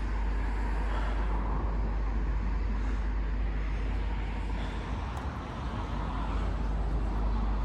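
Steady road traffic noise with a constant low rumble, no single vehicle standing out.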